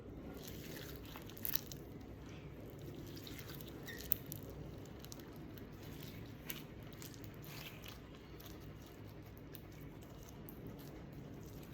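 Clear slime being handled, with faint sticky crackles and small squelches, and a few sharper clicks, the loudest about four seconds in.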